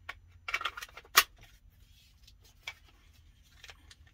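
Handling noise from an AR-15 rifle being turned over in the hands: a quick clatter of clicks and knocks about half a second in, one sharp knock about a second in, then a couple of lighter clicks.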